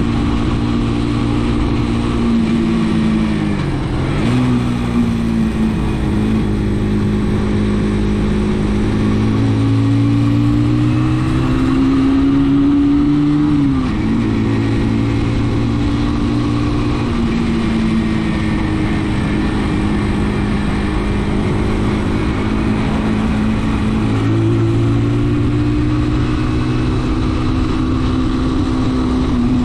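Brixton motorcycle engine running under way, its note rising and falling with the throttle. The pitch dips about four seconds in and then climbs slowly, drops sharply around the middle, holds steady, and rises again near the end, over a steady hiss.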